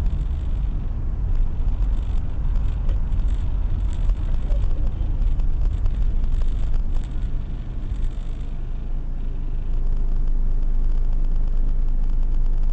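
Car engine and tyre noise heard from inside the moving car as a low, uneven rumble that settles into a steadier hum about ten seconds in. A brief faint high whistle comes about eight seconds in.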